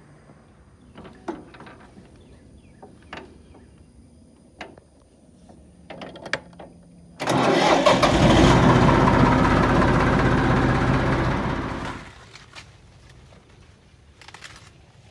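A vehicle engine catches suddenly and runs for about five seconds, easing off before it stops, after a few scattered knocks and clicks.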